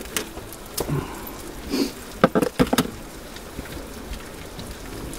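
Pepper mill being ground over a frying pan: a few scattered clicks, then a quick cluster of louder clicks and knocks a little past two seconds in.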